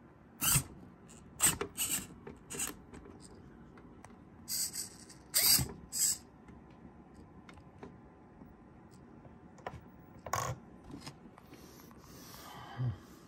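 Irregular sharp clicks and knocks of hard plastic as a radio-controlled car chassis is handled, coming in small clusters with pauses between them, and a soft rustle with a light knock near the end.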